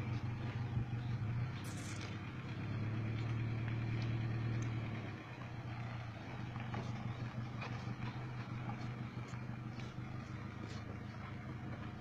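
Suzuki Carry van's engine running at low, steady revs as the van drives slowly, dipping in level about five seconds in.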